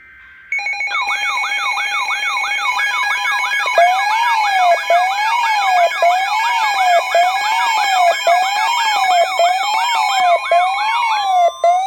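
Electronic siren tones layered together as an alert signal: a slow rising-and-falling wail about once a second under a faster yelping sweep a few times a second, with steady tones held over them. It starts about half a second in, breaks off briefly near the end and gives way to rising glides.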